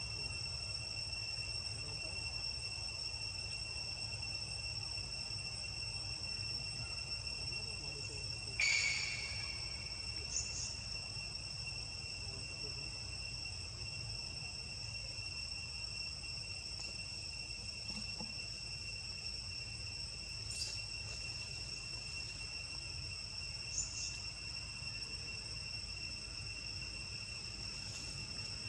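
Steady, unbroken high-pitched insect drone. A brief sharp high sound stands out about nine seconds in, with a few fainter short sounds later.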